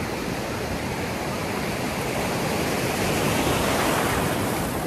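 Ocean surf washing and fizzing in the shallows, with a wave's rush swelling louder about three seconds in.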